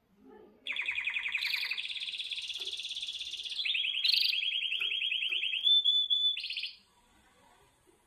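Canary singing: a run of fast rolling trills lasting about six seconds, starting under a second in, moving through several trilled phrases of different pitch and speed, with a short rising note near the end before it stops abruptly.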